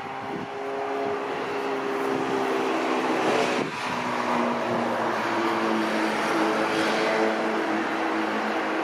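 A Boeing 737-700's CFM56 turbofan engines running loud as the airliner passes close on landing, the engine tones dropping in pitch about halfway through.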